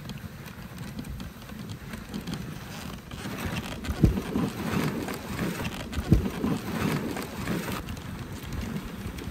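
Dog sled running over packed snow: the runners hiss and scrape steadily. The sound grows louder and rougher midway, with two sharp thumps about four and six seconds in as the sled knocks over the trail.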